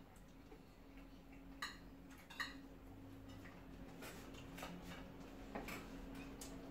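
Faint, scattered clicks and scrapes of metal spoons against plates as rice is scooped, about half a dozen over several seconds, under a low steady hum.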